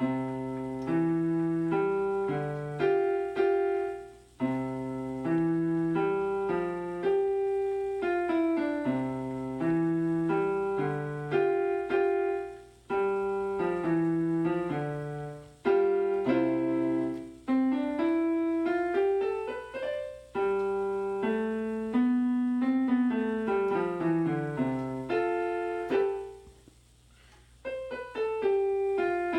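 Piano played by a learner working through a short melodic piece, single notes and chords that each die away, with a brief break about four seconds in and a longer pause near the end. The timing is not yet settled.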